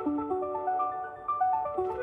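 An iPhone ringtone playing a quick melody of short notes in a marimba-like mallet tone.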